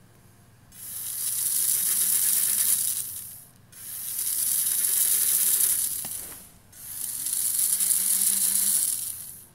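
Small DC motors and plastic gearbox of a toy tank whirring in three runs of about three seconds each, with short pauses between, as a test program cycles the wheels through forward, turning and stop.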